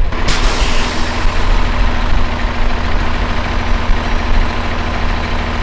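Heavy truck's diesel engine running steadily, with a brief hiss at the start that fades over about a second.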